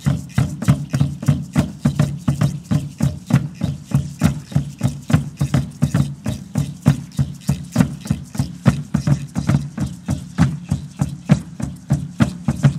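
Background music: a quick, steady beat of percussive strikes over a low sustained tone.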